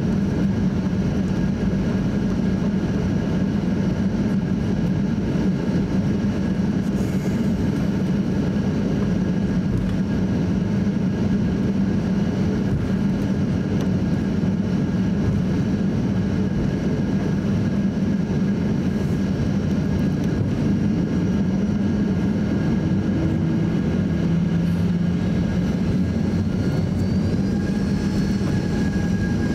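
Boeing 737-800's CFM56 jet engines at taxi power, heard inside the cabin as a steady hum and rush with a few faint whining tones. Some of the tones shift slightly in pitch near the end.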